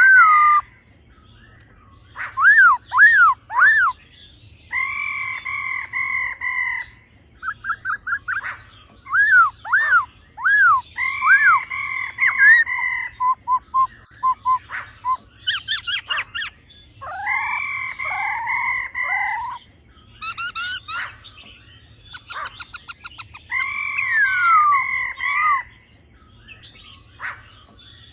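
Black-throated laughingthrush singing: loud, rich whistled phrases of one to three seconds each, some made of quick rising-and-falling loops, with short pauses between them.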